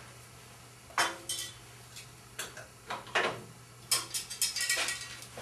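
Light clicks and knocks of a wooden bandsaw tenon jig being handled and clamped onto the saw's rip fence: a few scattered taps, then a quick run of small clatters near the end.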